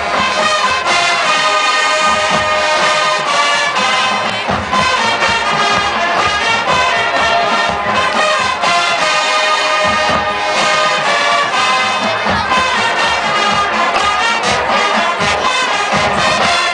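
High school marching band playing, with brass and percussion: held brass chords over rhythmic percussion hits.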